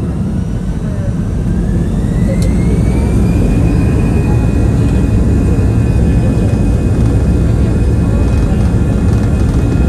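Airbus A319-112 jet engines (CFM56) spooling up for takeoff, heard from inside the cabin. A whine rises in pitch over the first three or four seconds and then holds steady over a loud low rumble as thrust builds for the takeoff roll.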